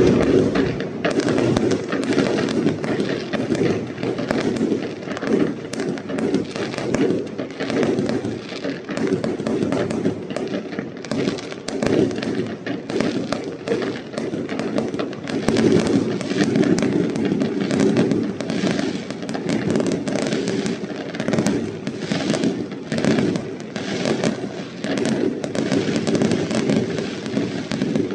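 Fireworks going off at close range: a dense, continuous crackle of rapid bangs and pops as shells launch and burst, without a break.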